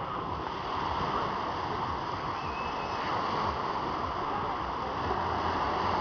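Sea surf breaking and washing onto a pebble beach, a steady rush of waves.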